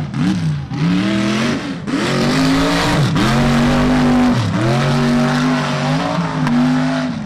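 Mega truck's supercharged alcohol-burning engine revving hard, its pitch climbing and dropping back several times, held high for a couple of stretches in the middle.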